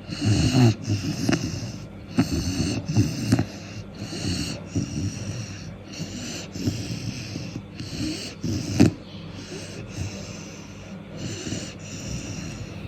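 A four-month-old Cane Corso puppy snoring, breath after breath in an uneven rhythm, with one louder breath about two-thirds of the way through.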